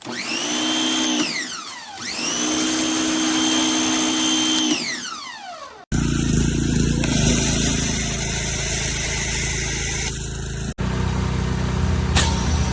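Electric pressure washer motor starting up and running at a steady pitch, then spinning down with a falling whine, twice in a row. This is followed by a steady hiss of spray and motor noise.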